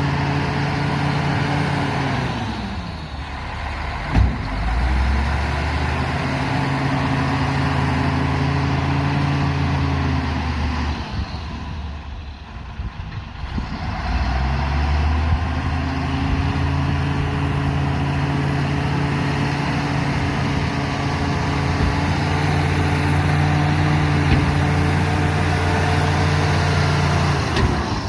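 Diesel engine of a heavy earthmoving machine working at high revs, dropping off about three seconds in and again for a few seconds near the middle before revving back up. A single sharp knock about four seconds in.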